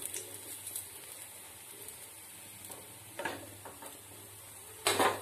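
Sweet potato cutlets frying in shallow oil in a kadai with a faint, steady sizzle, while a steel ladle lifts them out. The ladle scrapes against the pan a few times about three seconds in, and more loudly near the end.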